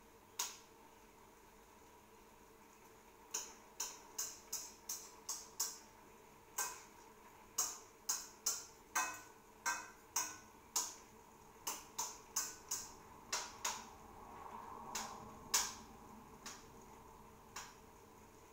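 A cooking utensil knocking against a wok while stirring food in it: one sharp clack a little after the start, then an irregular run of clacks two or three a second, with a brief soft scrape shortly before the loudest clack near the end.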